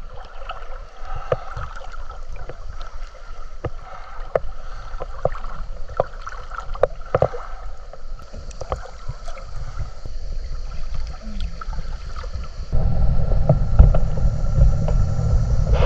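Water splashing and lapping at a camera held at the surface while swimming with arm strokes, with many small irregular splashes and drips. About three-quarters of the way through it cuts to a steady low rumble aboard the motorboat.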